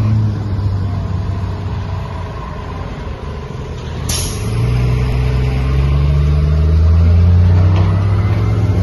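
Diesel engine of a fire engine pulling past close by, its low note growing louder in the second half. A short, sharp hiss of air about four seconds in.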